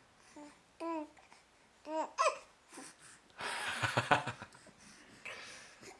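Two infants babbling to each other in short, high, gliding coos and squeals, with a loud breathy burst of laughter about three and a half seconds in.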